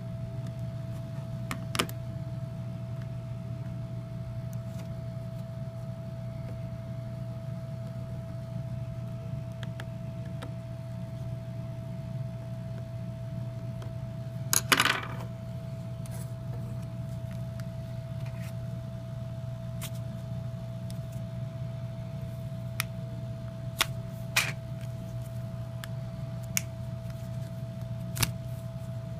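Scattered small clicks and taps of handling a disassembled phone and its parts, over a steady low electrical hum with a faint steady tone. The loudest cluster of clicks comes about halfway through.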